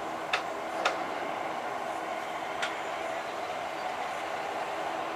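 Antonov An-124 jet engines running, heard from a distance as a steady drone with several held tones. Three short sharp clicks come in the first three seconds.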